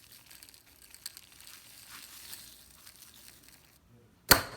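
Faint gritty crunching and rustling of kosher salt being poured and packed over slit kumquats in a glass jar. A single sharp click comes near the end.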